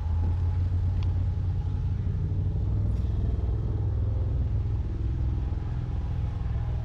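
Lifted Jeep's engine idling, a steady low exhaust rumble.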